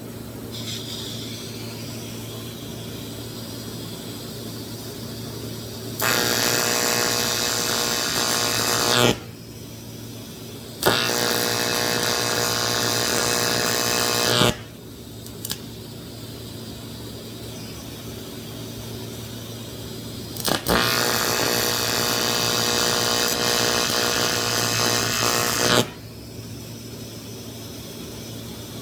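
TIG welding arc on 1/8-inch aluminium at 130 amps without filler rod, buzzing loud and steady in three runs of about three, three and a half and five seconds. A steady low hum sounds between them.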